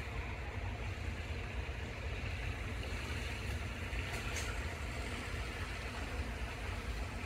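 Steady low rumble and hiss of background noise, even throughout, with no distinct calls or knocks standing out.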